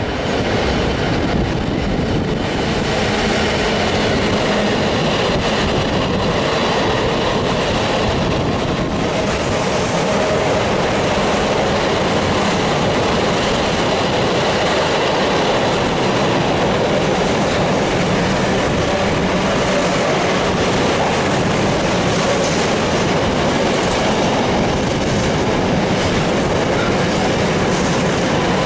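Container freight train passing close by at speed: the locomotive comes through in the first seconds, then the loaded container wagons roll past with the steady clatter of wheels on rails.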